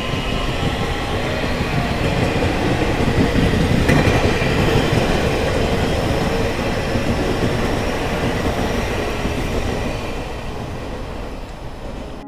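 Electric commuter train passing close by on the track, its wheels rumbling over the rails. The sound is loudest about four seconds in and fades slowly as the train pulls away.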